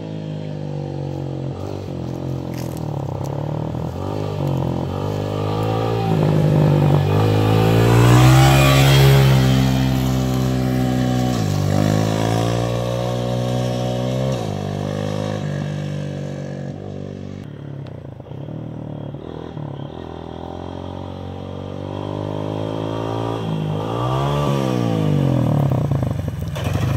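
Dirt bike engine passing by on a gravel road, its pitch repeatedly rising and falling as the throttle is worked. It is loudest as the bike comes close about a third of the way in, fades as it rides away, and grows louder again as it comes back near the end.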